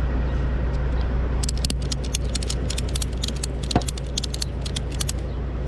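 Tow strap hardware rattling with fast, irregular metal clicks, starting about a second and a half in, over the steady low hum of an idling engine.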